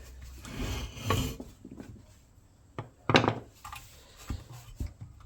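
Scraping, clicks and one sharp knock of tools and hands working at a stuck part on a small four-stroke lawnmower engine, trying to pry it loose.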